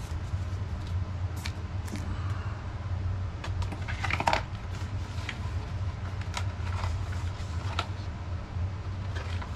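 A household furnace running with a steady low hum, under scattered light clicks and rustles of small objects being handled, with a brief flurry of them about four seconds in.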